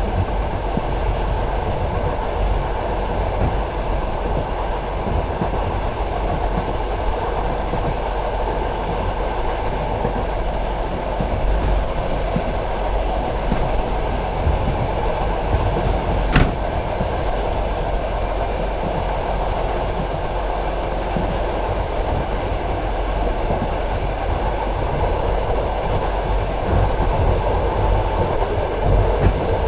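Passenger train carriage rolling along the track, heard from a carriage window: a steady rumble of wheels on rails, with one sharp click about halfway through.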